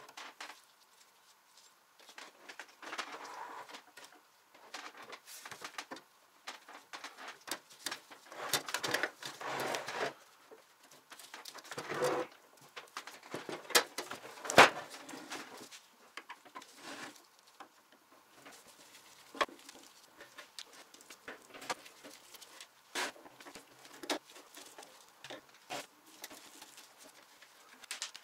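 Sheet-metal parts and the steel housing of an old Soviet electric shashlik maker being handled and taken apart: irregular scrapes, clinks and knocks of metal against metal and the table. The loudest is a sharp knock about halfway through.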